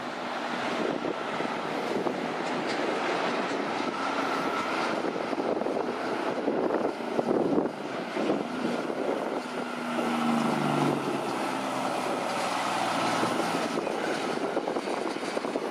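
A heavy truck's diesel engine runs with road and tyre noise. Its engine note shifts about two-thirds of the way through.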